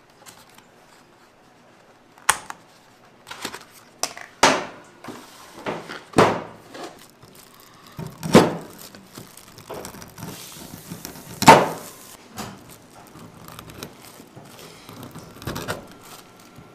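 Large kitchen knife cutting through a block of butter and knocking against the cutting board: about six sharp knocks at irregular intervals with smaller clicks between, the loudest about two-thirds of the way through.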